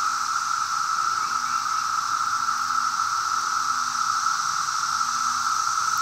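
A dense chorus of 17-year periodical cicadas: a steady, unbroken drone that neither rises nor falls.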